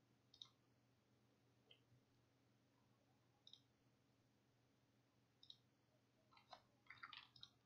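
Near silence, broken by faint computer mouse clicks: single clicks a second or two apart, then a quick run of clicks near the end, over a faint steady low hum.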